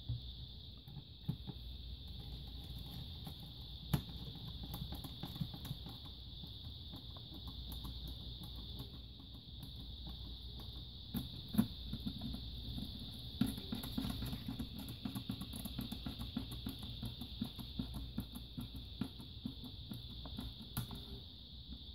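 Small clicks, taps and rattles of hands and a small screwdriver working on an opened laptop: screws being tightened and plastic parts and cables handled. A steady high hiss runs underneath.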